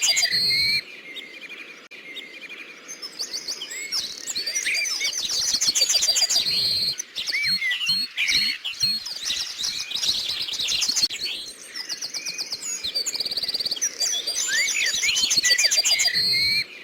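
Songbirds chirping and twittering in a dense run of quick high trills, whistles and rising and falling chirps, easing off briefly about a second in and again near the two-thirds mark.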